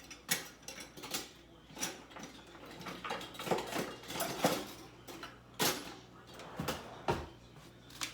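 A blade peeling a taro root: irregular scraping strokes with a few light knocks, roughly one or two a second.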